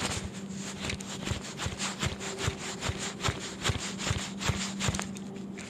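Spinning reel clicking in a quick, uneven run of about four or five clicks a second as the line is cranked tight against a snagged hook.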